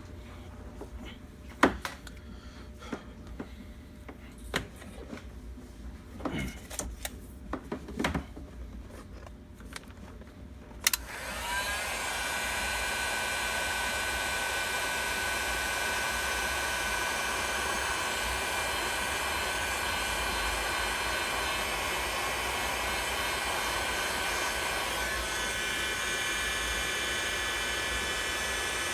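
A few clicks and knocks from handling. About 11 s in, a heat gun switches on and runs steadily, its fan blowing with a whine, to shrink heat-shrink tubing over freshly soldered wire splices.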